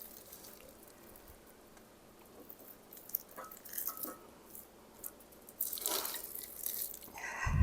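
Cooked rice being spooned into a bowl: soft wet squishing and light clicks of the spoon, with a dull thump near the end.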